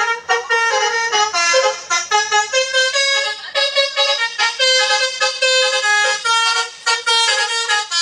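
Telolet horn playing its multi-note tune: short, loud horn notes that change pitch in quick succession, with a few brief breaks.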